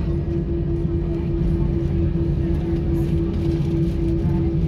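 Airbus A320 passenger cabin noise while taxiing: a steady low rumble with a constant hum-like tone running over it.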